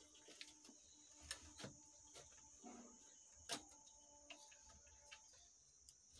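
Near silence with scattered faint clicks and light taps of a screwdriver working on a power amplifier's channel board and heatsink, the loudest about three and a half seconds in, over a steady faint high-pitched hiss.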